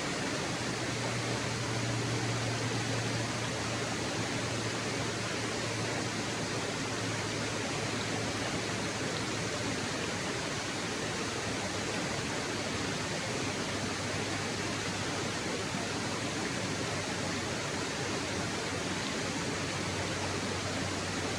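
Waterfall: a steady, unbroken rush of falling water, with a low rumble underneath.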